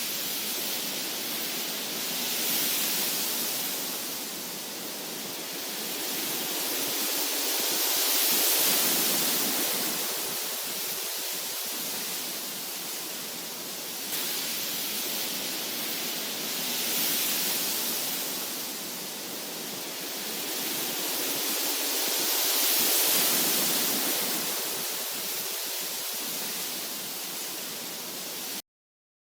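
Steady white-noise hiss, like rushing water, slowly swelling and fading in a repeating loop; it cuts off suddenly near the end.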